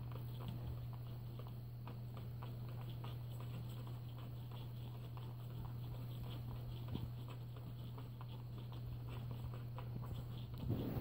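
A sleeping, dreaming Wheaten Terrier's paws twitching, her claws tapping lightly and irregularly against a baseboard and carpet like typing, over a steady low hum. A louder rustle comes near the end.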